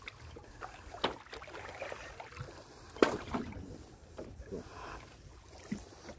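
Wooden country boat being poled and paddled, with water sloshing and two sharp knocks on the wooden hull, one about a second in and a louder one about three seconds in.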